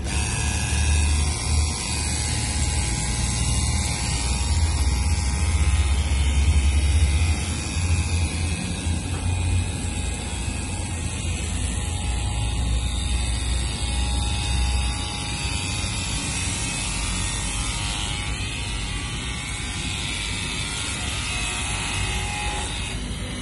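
Cordless 12 V pressure washer running with a foam cannon, spraying foam onto a car: a steady spray hiss over a low hum, the low part easing off about fifteen seconds in.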